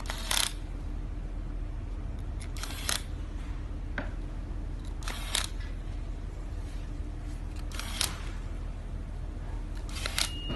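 Handheld power screwdriver driving tiny screws into aluminium card-holder plates: five short whirs, one every two to three seconds, over a steady low hum.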